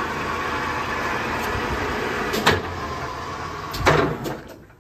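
Kearney & Trecker 420 TF-17 horizontal milling machine running with its horizontal spindle turning at 554 RPM, a steady mechanical drone. Two sharp clunks come about two and a half and four seconds in, and the running then dies away near the end.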